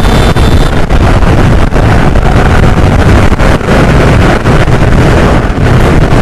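Wind buffeting the microphone of a Suzuki scooter riding at about 85 km/h on a highway. It is a loud, steady rush that keeps fluttering, with vehicle noise mixed in.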